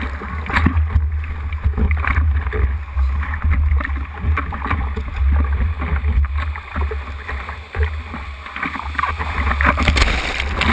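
Ocean water sloshing and splashing against a board-mounted camera while a surfer paddles through whitewater, over a heavy low rumble of water against the camera housing. The splashing grows louder near the end as whitewater washes over the board.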